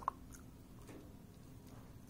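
A dog chewing and mouthing something on the floor, with faint small mouth clicks, and one sharp click just after the start.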